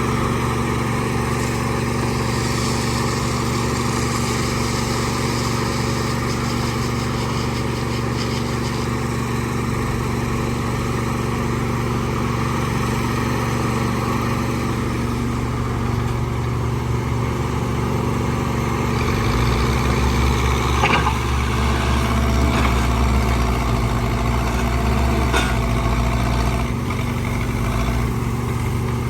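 Backhoe loader's diesel engine running steadily. About two-thirds through, it works harder for several seconds, with a few sharp knocks.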